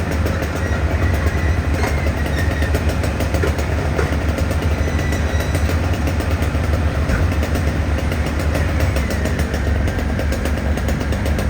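Large engine idling with a steady low rumble.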